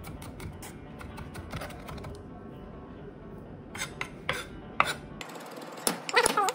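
Chef's knife mincing garlic on a wooden chopping board with a rocking motion: quick, rapid taps of the blade on the board for the first two seconds, then slower, sparser knocks, the loudest near the end.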